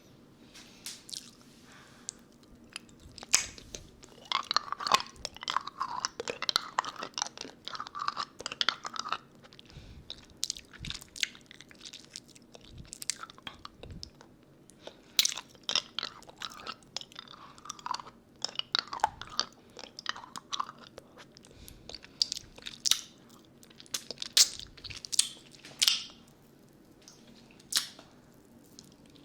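Close-miked mouth sounds with a lollipop: wet smacks, slurps and sharp clicks of the hard candy in the mouth, coming in irregular busy runs with short pauses between.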